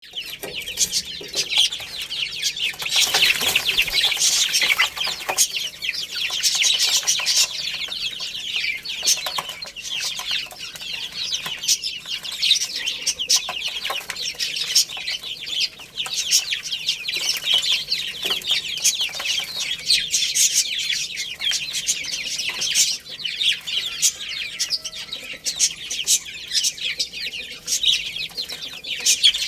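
A crowd of baby chicks peeping together: a dense, continuous chorus of high-pitched chirps.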